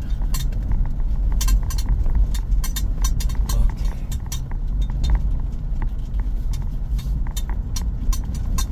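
Car driving slowly over a bumpy dirt track, heard from inside the cabin: a steady low rumble with frequent sharp clicks and rattles as the car jolts.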